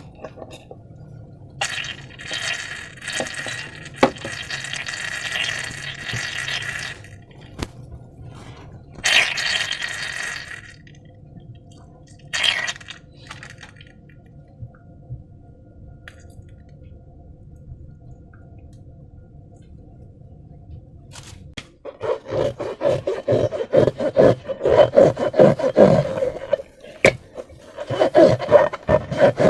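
Slime and rubber balloons being handled by hand: stretches of wet scraping and squelching, then from about two-thirds of the way in a dense run of crackling and clicking.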